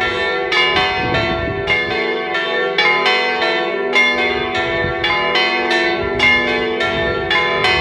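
Several church bells swinging and ringing together in a full peal, their strokes overlapping at about three a second, each stroke ringing on.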